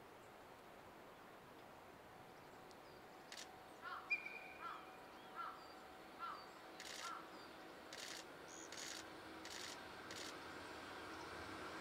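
Faint outdoor quiet with a bird calling a run of five short notes about three-quarters of a second apart, then a few brief high sounds. Near the end a low hum slowly grows, as of an approaching train.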